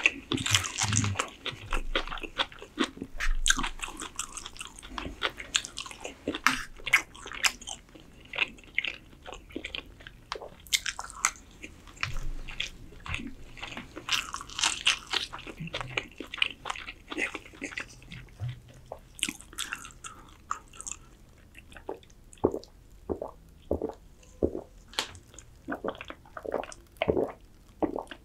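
Close-miked eating sounds: crisp crunching bites and chewing of a raw green vegetable, many sharp crunches close together, thinning later to slower, separate wet mouth clicks.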